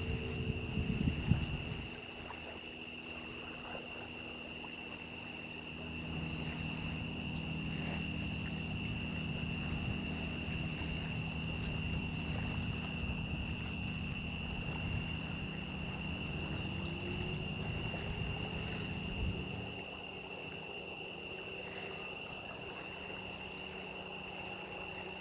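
Insects trilling steadily in the background. A low rumble swells from about 6 seconds in and fades at about 19 seconds.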